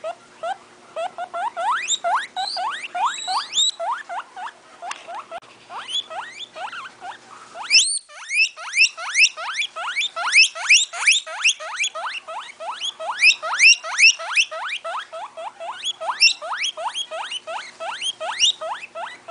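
Guinea pigs wheeking: a rapid, continuous run of short squeals that rise in pitch, about three or four a second. There is a brief break about eight seconds in, after which the squeals are louder.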